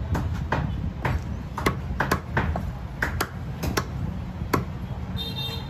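A heavy butcher's knife chopping chicken pieces on a wooden block: about a dozen sharp chops at two to three a second, stopping near the end. A brief high tone follows, over a steady low rumble.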